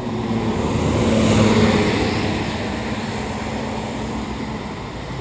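A bus driving past, its engine and tyres growing loudest about a second and a half in, then fading away.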